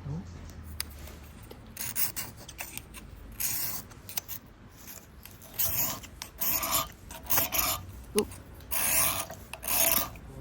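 Repeated rasping, scraping strokes. A few faint ones come first, then from about five or six seconds in they grow louder and closer together, roughly one stroke every half second.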